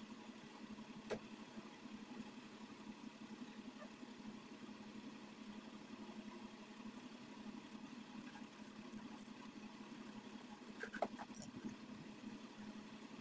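Steady low hum of room background, with a faint click about a second in and a short run of small clicks near the end from pearl beads and jewellery pliers being handled.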